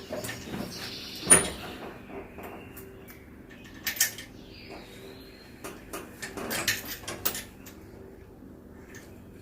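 Scattered metallic clicks and knocks of bolts, nuts and the steel seat bracket being handled while lock nuts are started on the mower's seat-mount bolts, with one sharper knock about a second in.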